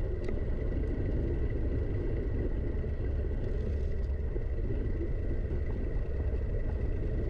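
Steady low rumble of wind buffeting and rolling tyre noise on a camera riding down a forest trail, with a faint steady high whine.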